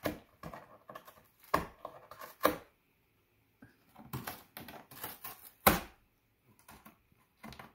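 A cat gnawing and tearing the edge of a corrugated cardboard box: irregular crunching clicks in clusters, with short pauses.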